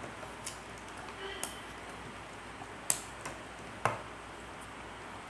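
A few short, sharp clicks and taps from handling the opened plastic LED torch and its reflector head, the loudest about three seconds in, over a low steady hiss.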